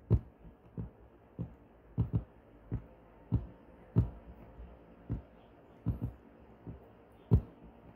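Computer mouse clicking about a dozen times at an uneven pace, short sharp clicks over a faint hiss, as lines of text are selected and set in bold.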